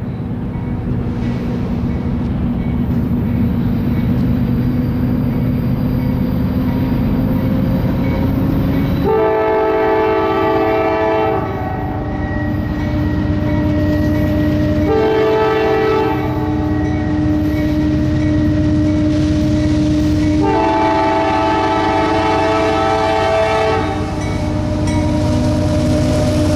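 CSX diesel locomotives pulling a freight train and accelerating, their engine rumble rising slowly in pitch. About nine seconds in, the lead locomotive's air horn starts sounding long blasts for the grade crossing: three of them, the last lasting a few seconds.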